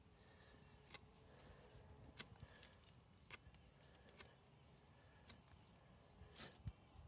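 Near silence: quiet woodland ambience with a few faint bird chirps and scattered soft clicks, the loudest clicks near the end.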